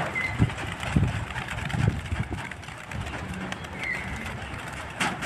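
A released flock of racing pigeons flapping away from their transport crates, with several sharp wing claps in the first two seconds, then quieter fluttering as the birds leave.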